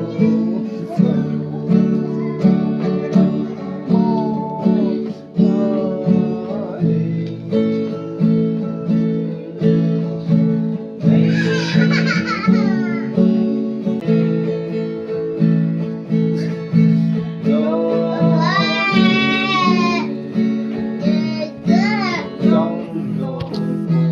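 Background music with plucked acoustic guitar over a steady repeating beat. High-pitched voices rise over it about halfway through and twice near the end.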